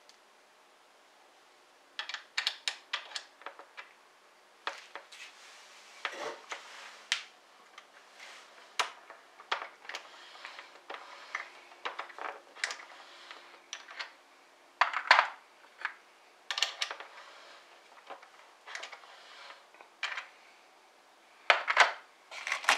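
Scattered light metallic clicks, clinks and knocks of brass .308 Winchester cartridges and bullets being handled and worked through a single-stage reloading press during bullet seating, irregular and with no steady rhythm.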